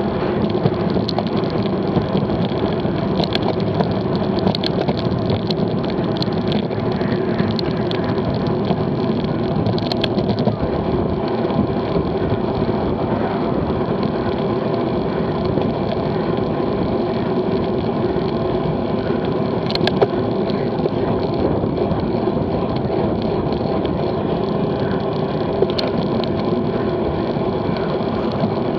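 Steady rush of wind and road noise from a road bicycle riding at speed, about 19 to 26 mph, as picked up by a bike-mounted action camera's microphone, with a few sharp clicks scattered through it.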